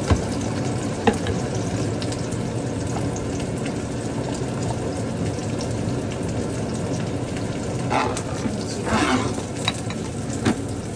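Food sizzling steadily in a frying pan, with a couple of sharp utensil clicks near the start and brief louder scrapes or spatters near the end.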